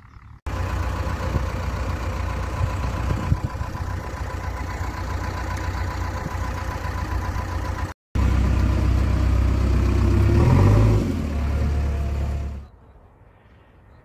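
JCB 3DX backhoe loader's diesel engine running steadily. After a short break a second stretch of engine running comes in louder, its pitch shifting briefly, then it cuts off suddenly.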